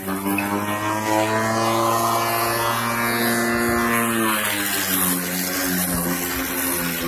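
Cordless battery-powered electric lawn mower running: a steady motor-and-blade hum with a whine, its pitch shifting slightly in the middle.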